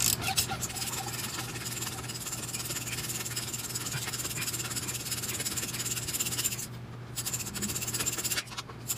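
Open-end wrench turning a sway bar link nut off its rubbed-down, damaged stud threads: a steady metallic scraping and rasping that stops briefly about seven seconds in and again near the end, over a steady low hum.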